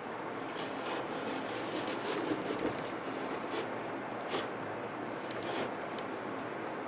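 Sheet of Dacron polyester batting handled against a wall: soft rustling and scraping as it is pressed and smoothed into a wooden lattice frame, with a few light ticks scattered throughout.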